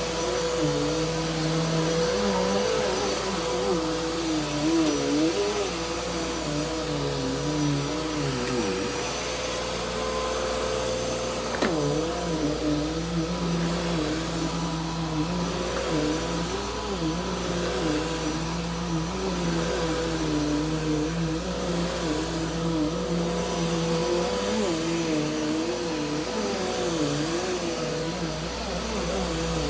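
Bissell PowerForce Helix upright vacuum cleaner running over carpet. It makes a steady whine over a lower hum that keeps wavering up and down in pitch, with one short click about twelve seconds in.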